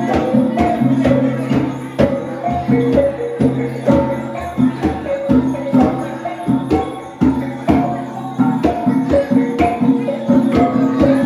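Traditional gong music played live while walking: hand-held gongs struck in a quick steady beat, with low gong tones ringing on under a changing higher pattern of small gong notes.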